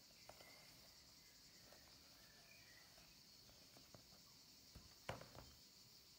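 Near silence with a steady faint hiss, broken by a few soft clicks and knocks of a smartphone being handled on a leather laptop sleeve. The loudest comes about five seconds in as the phone is lifted.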